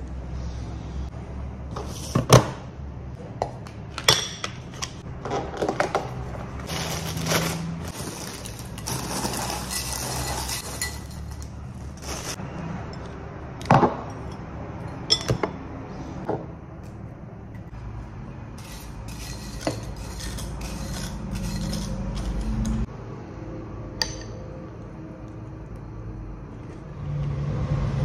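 Kitchen clatter: dishes and small objects clinking and being knocked down on a countertop, with some stretches of rustling between the knocks.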